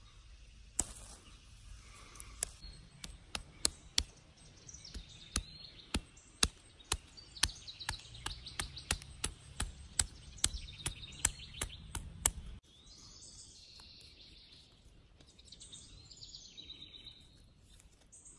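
A stone knocking repeatedly on a green dogbane stalk laid across a wooden stump, crushing the stem to loosen its fibres: a run of sharp knocks, about two or three a second, that stop suddenly about twelve seconds in. Birds chirp in the background.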